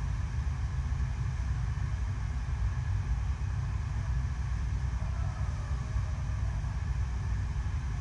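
Steady low rumble and rush of the artificial wave ride: a sheet of water driven by pumps pouring continuously over the surf slope.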